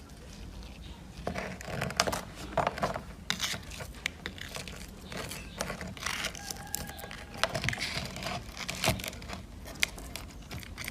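Hands working on a smartphone during repair: an irregular run of crinkling, tearing and scraping noises with sharp clicks, starting about a second in.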